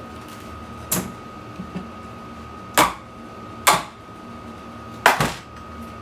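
Four sharp hammer blows, irregularly spaced, knocking on an electric water heater to smash it open; the last blow rings on briefly.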